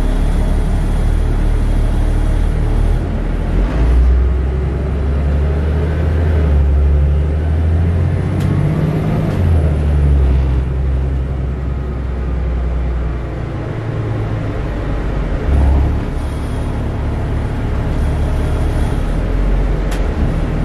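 Denning Phoenix low-floor city bus heard from inside the passenger cabin while driving: the engine and drivetrain run under load, with the low engine note rising and dropping a few times as the bus accelerates and changes gear, over steady road and cabin rattle noise.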